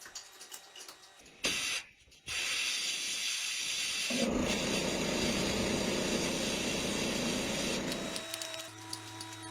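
A steady hiss of spray starting about two seconds in after a short burst, with a heavier low rushing layer added through the middle; near the end it gives way to the steady hum of a small motor.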